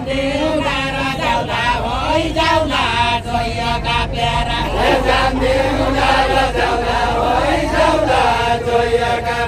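Voices singing a Deuda folk song together, a chant-like melody of held notes that rise and fall.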